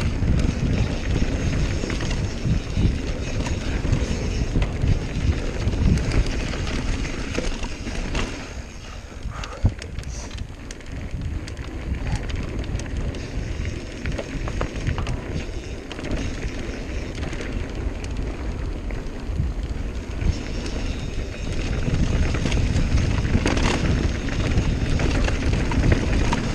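Wind rushing over the microphone, tyres rolling on dirt singletrack, and frequent rattles and clacks from a Santa Cruz Nomad full-suspension mountain bike on rough ground. The rush is louder at first, eases for a stretch in the middle, and builds again near the end.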